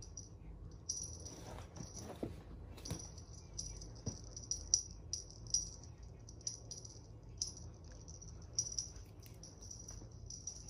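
A small jingling toy rattle shaken in quick short bursts, over and over, with light clicks among the jingles.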